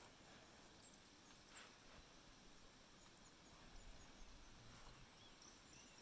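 Near silence: faint outdoor background hiss with a few faint, short high chirps.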